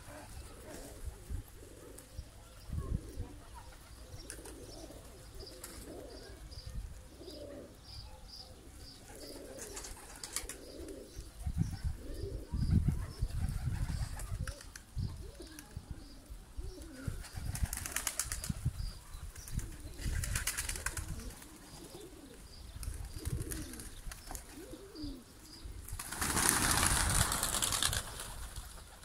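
Trakya Makaracı pigeons cooing on and off, with short flurries of wingbeats. Near the end comes a loud rush of many flapping wings as the flock lands on the loft roof.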